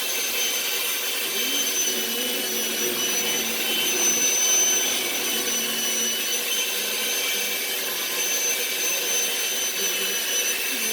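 Electric hand mixer running steadily on speed 3, its beaters whirring through cake batter in a bowl, with a constant motor whine.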